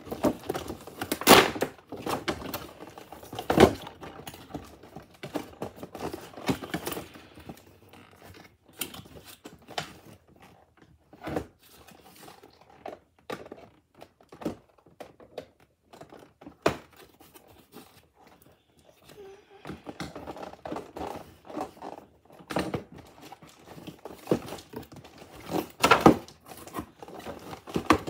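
A cardboard toy box with a clear plastic window being handled and opened by hand: irregular thunks, knocks and clicks with some crinkling of plastic and tearing, louder knocks about a second in, near four seconds and again near the end.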